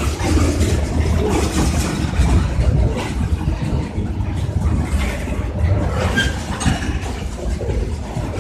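Freight train cars rolling past: a steady rumble of wheels on the rails with a few sharp clacks.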